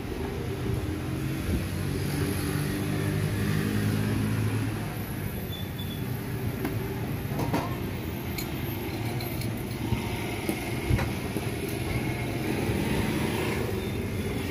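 Steady street background noise with a motor engine humming nearby for the first five seconds or so, then fading, and a few light knocks later on.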